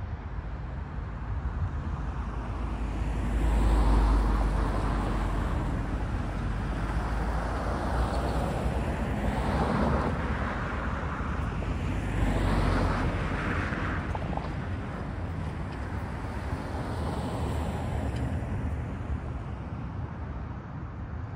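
Road traffic: several cars driving by one after another, each swelling and fading, over a low rumble. The loudest pass is about four seconds in.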